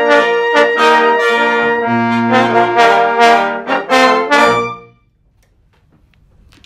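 Brass ensemble of trumpets, horn and trombones playing a piece's closing bars: loud punctuated chords over a low held note, cutting off about five seconds in, followed by a near-silent hush.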